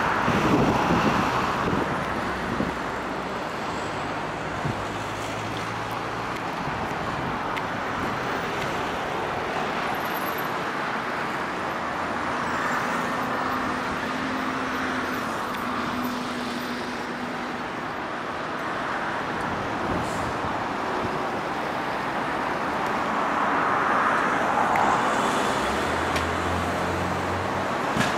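Steady outdoor background noise, a continuous rush like distant traffic that swells a little twice, with faint low hums that come and go.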